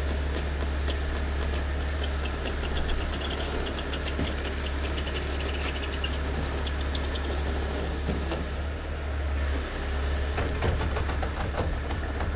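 Heavy rotator tow truck's diesel engine running steadily, a constant low drone, with scattered light clicks and rattles over it.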